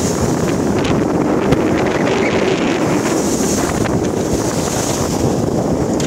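Strong wind buffeting the microphone aboard a sailing yacht sailing close-hauled, over the rush of the sea along the hull.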